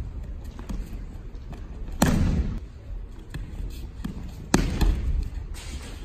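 Two heavy slaps of a body hitting tatami mats in aikido breakfalls, about two and a half seconds apart, each echoing in a large hall, with lighter thuds of bare feet on the mats between them.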